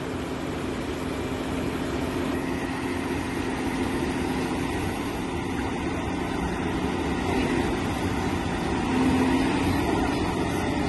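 Excavator's diesel engine running with a steady droning tone, growing gradually louder and loudest about nine seconds in.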